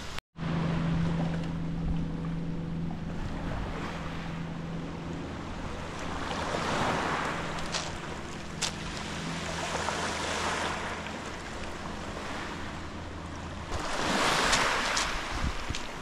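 Sea waves washing in and surging every few seconds, over the steady low hum of a boat engine that stops a couple of seconds before the end.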